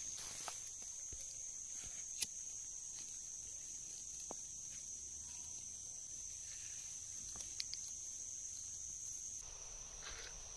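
Steady high-pitched insect chorus, with a few faint clicks, the sharpest about two seconds in.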